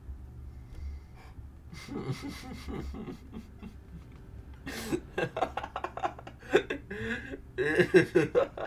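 A man laughing, muffled behind his hand. Soft chuckles and breaths start about two seconds in. From about five seconds in come louder bursts of laughter, loudest near the end.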